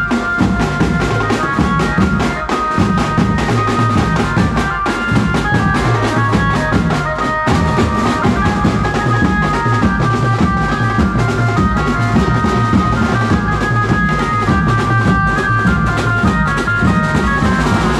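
Mumbai banjo-party street band playing. Several marching drums keep a fast, steady beat under a loud melody line amplified through horn loudspeakers.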